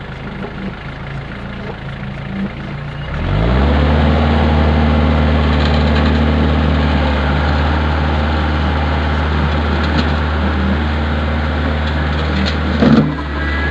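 Kubota tractor's diesel engine idling, then revving up about three seconds in and holding at steady higher revs as the tractor backs up, pulling a chained bush out. A short loud knock comes near the end.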